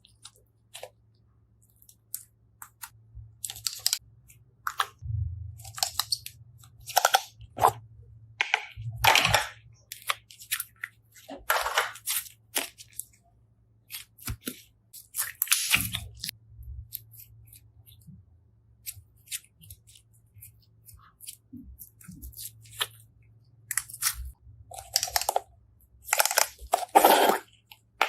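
Slime being pressed and squeezed by hand close to the microphone, giving irregular crackly, crunchy bursts of varying length, over a faint low hum.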